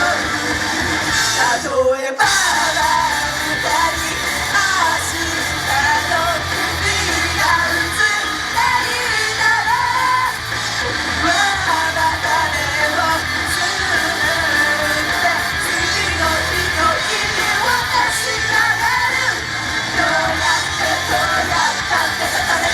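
Loud live idol pop-rock song with singing and yelling over the backing, with a brief dropout about two seconds in.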